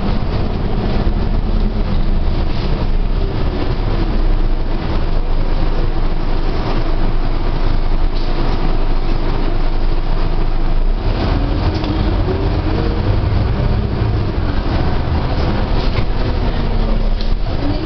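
Cabin noise inside a moving bus: a steady engine rumble and road noise. About eleven seconds in, the low drone grows louder with a faint rising whine.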